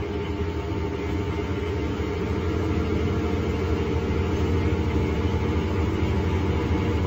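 Scania K310 city bus's rear-mounted five-cylinder DC09 diesel engine running on the move, heard from inside the bus: a steady low drone that grows a little louder about two seconds in.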